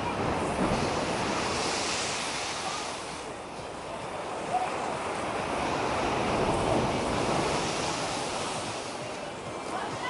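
Storm surf: heavy waves breaking and rushing up the shore in two big surges, each swelling and then ebbing away.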